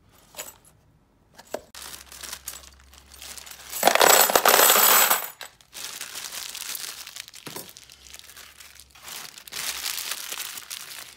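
Loose metal key blanks emptied from a small box into a plastic parts bin: a dense jingling clatter for about a second and a half near the middle, with lighter clinks and rattles of keys being handled before and after.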